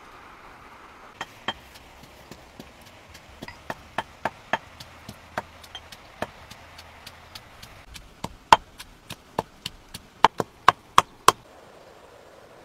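Stone pestle pounding red chilies in a stone mortar: a series of sharp knocks, a few a second, starting about a second in, loudest and quicker near the end, then stopping shortly before the end.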